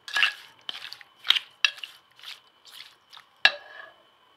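A spatula stirring and scraping raw chicken pieces with spices around a stainless steel bowl, in a run of short strokes. About three and a half seconds in, a sharp knock against the bowl leaves it ringing briefly.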